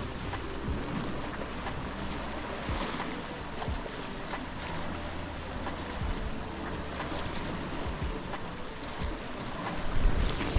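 Sea washing against the rocks below, with wind buffeting the microphone. A few louder knocks and rustles come near the end.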